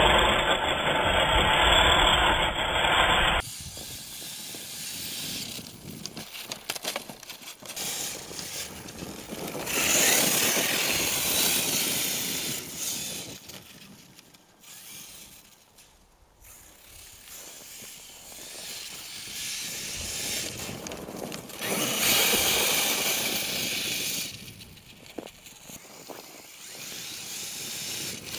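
HPI Savage Flux RC truck on a 4S LiPo, its brushless motor whining and its tyres churning snow as it drives. Louder and close for the first few seconds, then fainter and mostly hiss, swelling and fading several times with the throttle.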